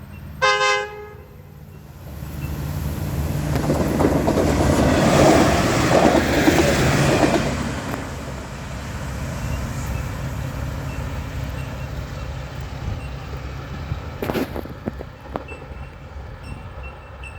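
A train sounds a brief horn blast just after the start, then passes close by. Its engine rumble and wheel noise build to a peak about five to seven seconds in and fade slowly as it moves away. There is a single sharp knock about fourteen seconds in.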